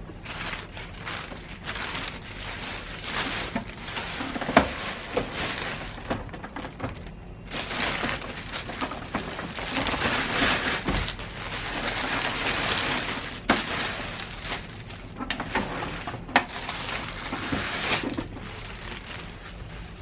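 Printer packaging being handled and pulled off: plastic wrapping rustling and crinkling in uneven swells, with a few sharp clicks and knocks as the printer is moved.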